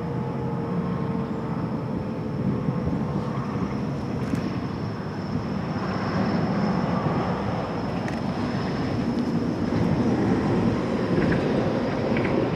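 An ASC T-135 electromechanical warning siren winding down, its tone falling slowly and fading away within the first few seconds, under a steady broad rumble that grows a little louder toward the end.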